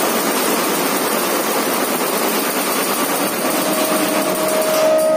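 Multi-head computerized embroidery machine running, a loud, steady, dense mechanical noise from its many stitching heads. A steady tone joins about three and a half seconds in.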